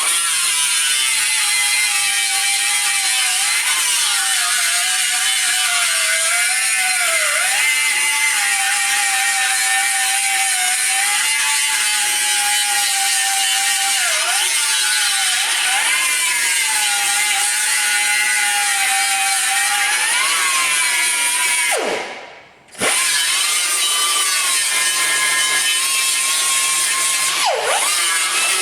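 Electric grinder with a 36-grit disc grinding down weld edges on a steel sill panel. Its motor whine sags each time the disc is pressed into the metal, and about two-thirds of the way through it winds down, stops briefly and starts again.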